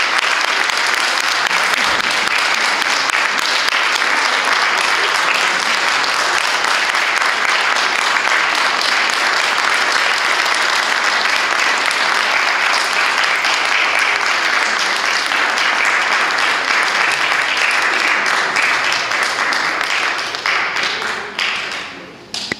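Audience applauding steadily, then dying away to a few scattered claps near the end.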